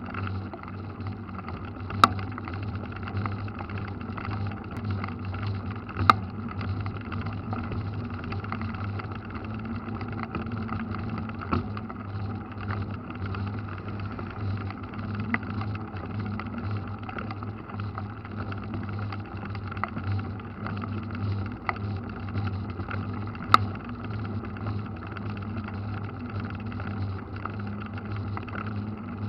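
Mountain bike rolling on wet asphalt, heard from a camera mounted on the bike: a steady hum of tyre and wind noise, broken by a few sharp knocks as the bike jolts, three of them louder than the rest.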